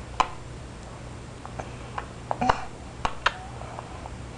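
A baby's mouth smacking and clicking as she eats bread: about six short, sharp smacks scattered through the few seconds, one about two and a half seconds in carrying a brief little vocal sound, over a steady low hum.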